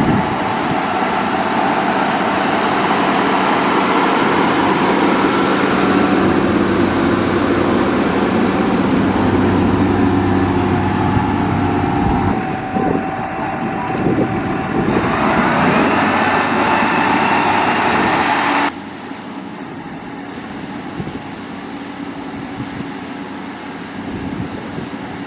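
Diesel engine of a motor grader running steadily under load, with a rise in pitch about two-thirds of the way through. The sound then drops suddenly to a quieter, steady engine hum.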